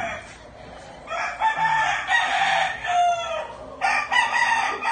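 Several gamecocks crowing one after another, their crows overlapping, with some clucking.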